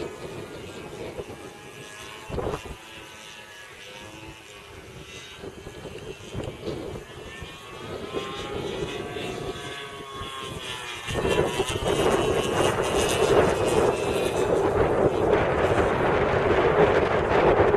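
Gasoline engine of a radio-controlled model airplane running in flight, its drone rising and falling in pitch as the plane manoeuvres. There is a short knock about two and a half seconds in, and from about eleven seconds loud wind noise on the microphone rises over the engine.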